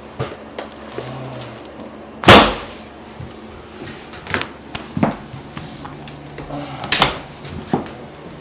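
Chiropractic adjustment: two loud, sharp cracks, one about two seconds in and one about seven seconds in, with a few softer knocks and clicks between them.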